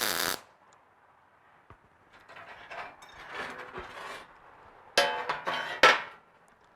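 Welder laying short tack welds on steel bumper plate: several brief bursts of crackling, buzzing arc noise, a short one right at the start, softer welding in the middle and the loudest tacks about five to six seconds in.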